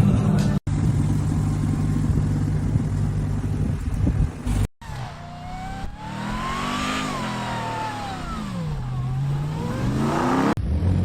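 Ram TRX's supercharged 6.2-litre V8 running at a steady pitch. After an abrupt break about halfway in, it revs up smoothly, falls back down and starts to climb again.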